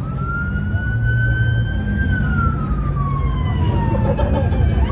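Police siren wailing: its pitch rises slowly for about two seconds, falls for about two seconds, then jumps back up near the end to begin the next sweep. A low steady rumble runs underneath.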